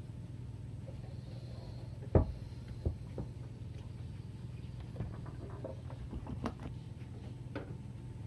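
Small clicks and knocks of fishing tackle and rod being handled in a wooden boat, with one sharper knock about two seconds in, over a steady low hum.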